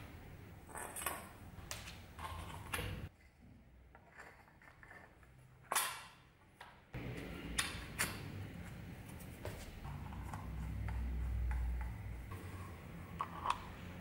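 Scattered clicks, taps and knocks of a sport fencing rapier's parts being handled and fitted together: the painted metal bell guard, wooden handle and small steel nut going onto the blade. One sharp knock about six seconds in, and a low rumble around two-thirds of the way through.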